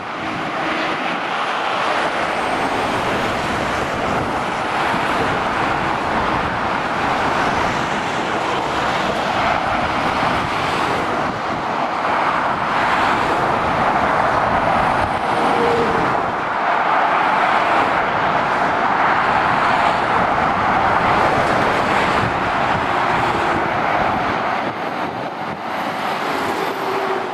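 Steady motorway traffic noise of lorries and cars passing below: tyre roar and engines, swelling a little as each vehicle goes by.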